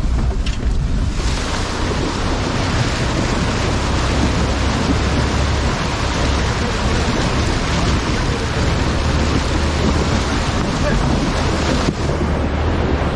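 Four-wheel-drive vehicle wading up a shallow stream: water splashing and rushing off the front wheel over a steady low engine rumble. The splashing thickens about a second in.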